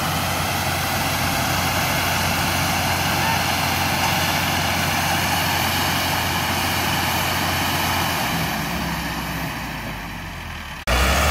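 Two Massey Ferguson 385 tractors' diesel engines running together under load, hauling a heavily loaded sugarcane trolley: a steady low drone. Near the end it dies down, then cuts off abruptly to a louder, steady engine sound.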